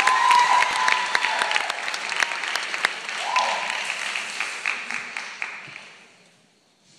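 Theatre audience applauding, with a held high call from the crowd near the start; the clapping thins and dies away about six seconds in.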